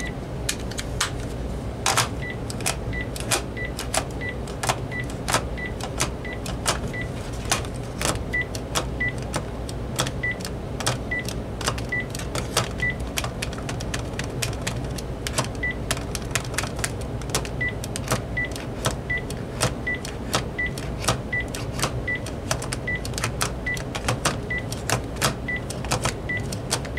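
Plastic clacking of a Panasonic DECT 6.0 Plus cordless handset being rocked quickly back and forth in its charging cradle, with short high beeps repeating from about two seconds in, over a low steady hum. The jostling tests whether the freshly cleaned charge contacts keep their connection.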